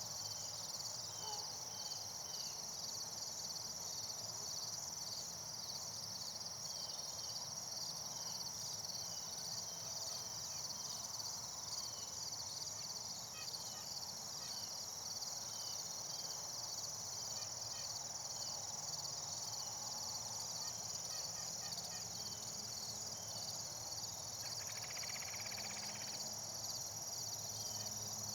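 Steady chorus of crickets and other insects: a high continuous trill with a faster pulsing just beneath it, and scattered faint chirps throughout. A short buzzy sound lasts about a second and a half near the end.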